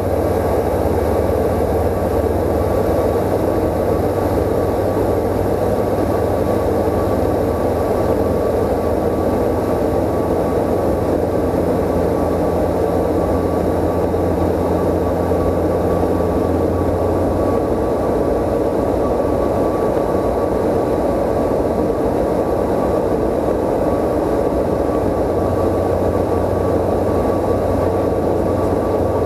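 Cabin noise of a CSA PS28 Cruiser light aircraft in flight: its Rotax 912 four-cylinder engine and propeller giving a loud, steady drone. The lowest part of the hum fades about two-thirds of the way through and comes back near the end.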